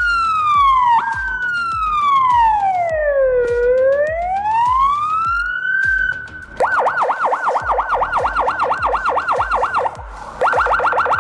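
Electronic emergency-vehicle siren from a siren and PA unit cycling through its tones. First comes a slow wail sweeping down and back up, then a fast yelp from about six and a half seconds in. The yelp breaks off briefly near the end and resumes at a quicker rate.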